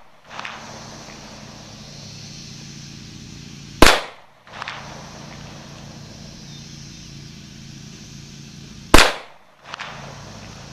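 Two loud, sharp .40 caliber pistol shots from a Springfield XDM 5.25, about five seconds apart, each followed about half a second later by a much fainter knock.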